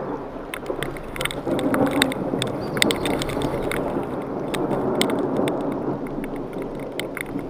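Thunderstorm wind and heavy rain rushing steadily, with many sharp ticks of raindrops striking close to the microphone.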